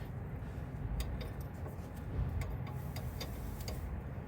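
Scattered light metallic clicks and ticks, irregularly spaced, from a wrench and a steel brake line being worked loose at the fitting.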